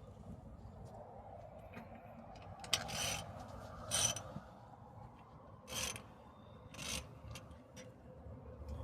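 A handful of short scraping and rubbing sounds from hand tools working on a car's wheel hub, over a low steady background hum.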